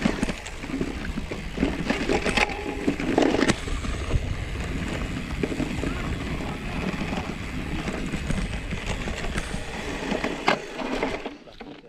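Mountain bike rolling over rough, grassy ground: tyres rumbling, with the bike rattling and knocking over bumps. The noise drops away suddenly near the end.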